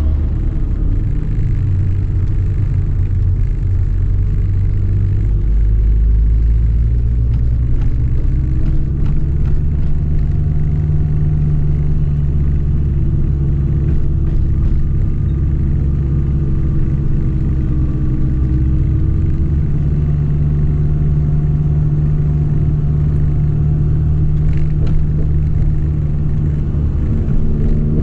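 Honda Civic Nouva's engine heard from inside the cabin, pulling steadily in second gear over a low road rumble. The engine note climbs as it revs up near the end.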